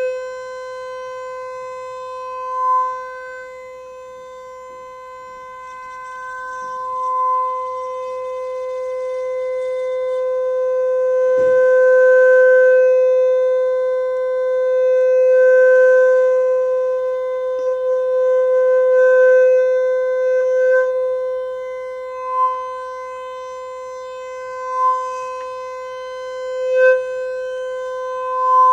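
A steady single-pitch tone from a constant-frequency sound source sounding over a resonance tube closed at its lower end by water. The tone repeatedly swells in loudness and fades as the tube is moved, with brief peaks and two longer swells; each swell marks the air column reaching a length where a standing wave forms. A faint knock comes about eleven seconds in.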